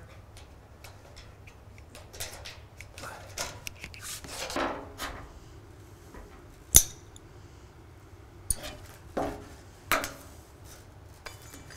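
Hand aviation snips cutting a sheet-metal roofing panel: a scatter of short crunching snips and metallic clicks, with one sharp metallic click about seven seconds in.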